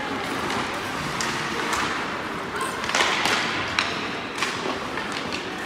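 Ice hockey play: scattered sharp clacks and knocks of sticks and puck, with a short scraping hiss of skates on ice about three seconds in.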